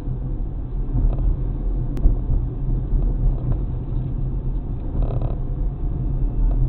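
Steady low road and engine rumble inside a moving car, picked up by a dashcam microphone. A single sharp click comes about two seconds in, and a brief faint higher sound about five seconds in.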